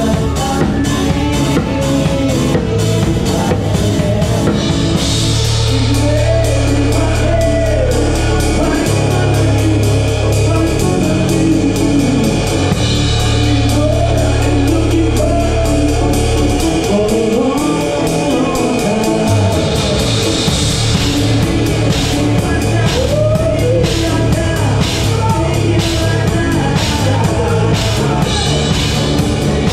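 Live band playing a song, heard close to the drum kit: drums with a singer, bass and guitar. The drumming drops back for a stretch in the middle while long low bass notes hold, then the full beat comes back near the end.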